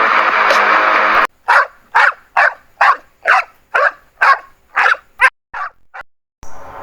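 A dog barking rapidly, about ten sharp barks a little over two a second, the last few fainter. Background music stops just over a second in and starts again near the end.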